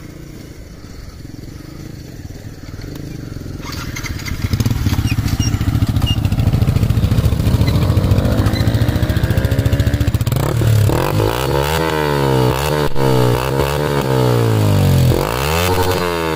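Yamaha R15 V3's single-cylinder engine running through an aftermarket Akrapovič-branded slip-on exhaust. It runs steadily at first, then from about ten seconds in it is revved up and down in a series of throttle blips.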